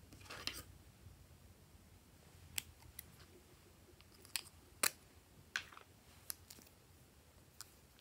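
Plastic lipstick tubes and caps clicking and tapping as they are handled and uncapped: about eight short, sharp clicks spread unevenly, the loudest about five seconds in.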